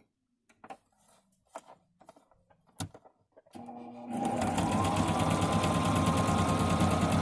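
A few faint clicks of fabric being handled, then, about three and a half seconds in, a domestic electric sewing machine starts, speeds up with a rising whine and stitches a seam at a fast, even rate.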